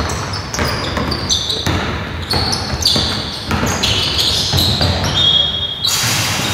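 Basketball bouncing on a hardwood court, with irregular thuds and the short high squeaks of sneakers on the floor during live play.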